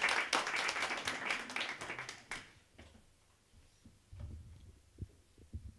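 Audience applause that dies away about two and a half seconds in, followed by a few low bumps from a handheld microphone being lifted off its stand.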